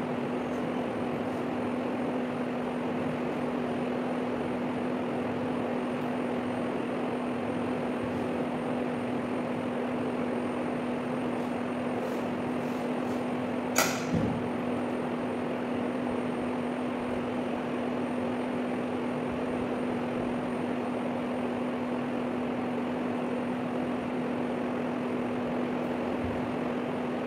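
Steady hum and airy noise of a running motor-driven fan or similar appliance, with one constant low tone. A single sharp click about halfway through.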